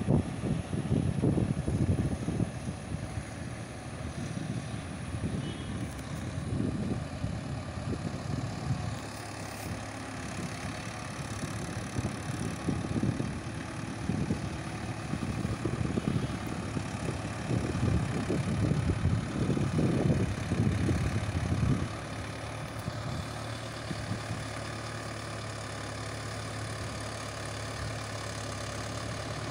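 Mahindra Yuvo 575 DI tractor's 45 hp four-cylinder diesel engine running, driving a rotavator to puddle a flooded paddy field. The low sound rises and falls unevenly until about 22 seconds in, then settles to a steady hum.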